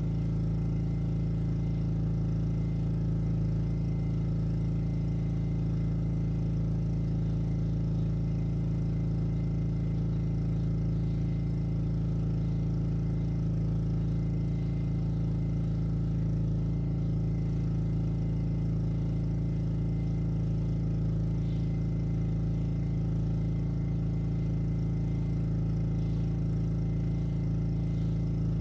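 Black Max pressure washer's single-cylinder Honda engine running steadily at a constant speed, heard from inside a car.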